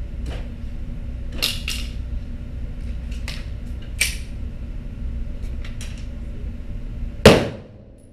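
A single loud pistol shot about seven seconds in, ringing off the walls of the indoor range, over a steady low hum. Several fainter sharp clicks and knocks come before it.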